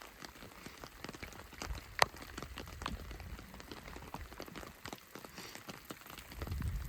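Rain falling, with many scattered drops ticking close by and one sharper tap about two seconds in.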